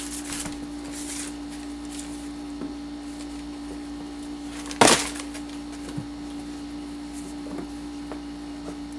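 A sneaker set down with one sharp knock on a hard surface about five seconds in, with light handling rustle near the start and a few faint taps later. A steady low hum runs underneath.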